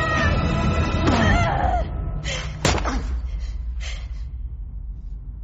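Fight-scene sound effects: a falling cry in the first two seconds, then one sharp impact thud about two and a half seconds in, followed by a low rumble and short gasping breaths.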